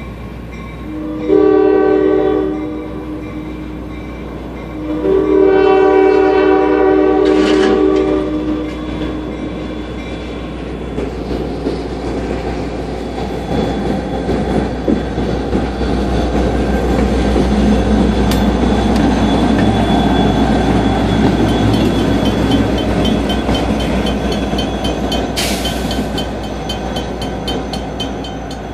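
Norfolk Southern diesel locomotive sounding its multi-chime air horn, a short blast and then a longer one of about three seconds. Its diesel engine then rumbles past, growing louder and easing off. Near the end a bell dings steadily.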